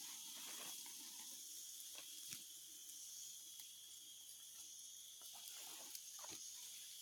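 Faint, steady chorus of insects buzzing high in pitch, with a few small clicks and rustles scattered through it.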